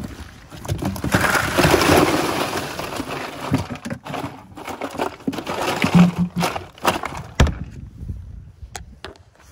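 Ice cubes poured into a plastic cooler over freshly caught mullet: a clattering rush for a few seconds, then scattered knocks and a thump against the cooler.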